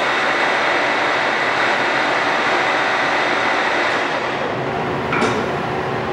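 ACER Dynamic 29x60G heavy-duty engine lathe's geared headstock running at 860 RPM in high range: a loud, steady mechanical whir with a faint whine. About four seconds in the running sound eases off, and a sharp clack follows about a second later.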